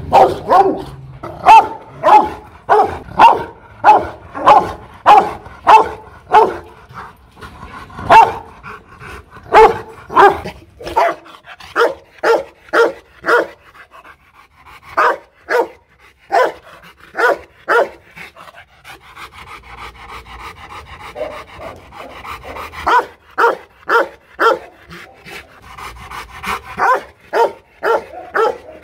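Rottweiler barking in a long series, about two barks a second, breaking off for a few seconds a little past the middle before starting again.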